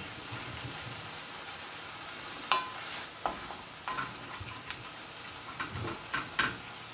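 Wooden spoon stirring mushrooms and onions in sizzling oat-milk sauce in an enamelled cast-iron pot, deglazing the browned base of the pan. A steady sizzle runs under several sharp knocks of the spoon against the pot, the first about two and a half seconds in, some with a short ring.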